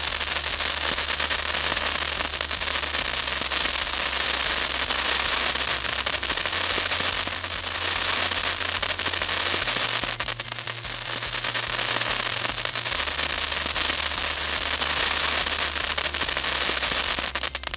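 Crackling fountain firework spraying sparks, with a continuous hiss packed with rapid fine crackles that stays steady and falls away right at the end.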